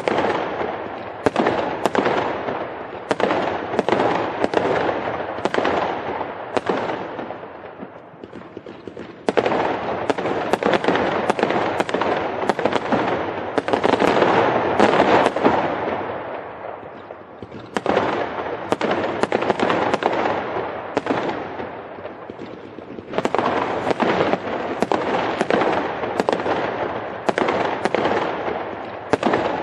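Fireworks going off in quick succession: sharp bangs one after another over continuous crackling, easing off briefly about eight seconds in and again a little past twenty seconds.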